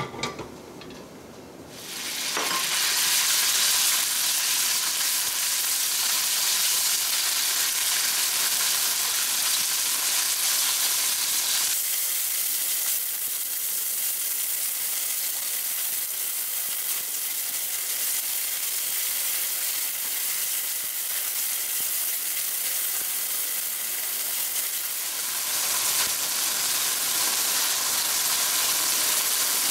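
Marinated beef strips sizzling loudly in hot oil in a nonstick wok. The sizzle starts suddenly about two seconds in as the meat goes into the pan, and the meat is stirred with a spatula.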